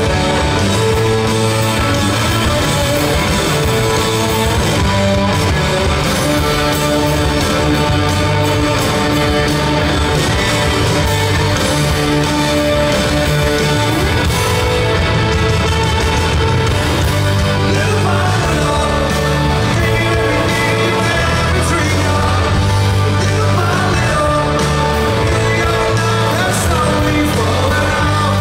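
Live rock band with electric guitars and bass playing a mid-tempo rock song, heard loud from the audience. A male lead vocal sings over the band in the later part.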